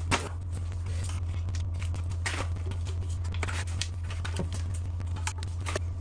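Irregular light metallic clicks and scrapes of hand work on the Webasto diesel heater's parts as it is taken apart, over a steady low hum.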